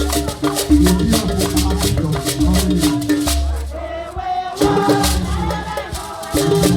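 Music for a traditional Anioma dance, with a rapid shaker rattle over a steady, repeating bass beat. The shaker stops for about a second in the middle and then comes back.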